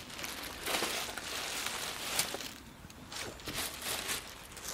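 Footsteps on grass: irregular soft rustling steps.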